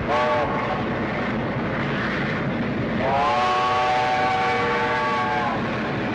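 Steam locomotive whistle sounding over the rumble of the moving train: a short blast at the start, then a long blast from about three seconds in that holds for some two and a half seconds. Each blast slides up into its pitch, with several tones sounding together.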